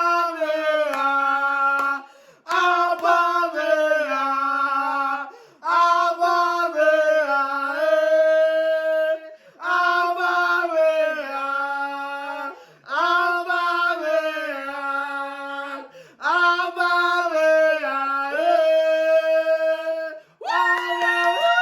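A single voice singing unaccompanied: the same short phrase repeated about seven times, each opening with a falling swoop and settling on held notes, with brief breaks between.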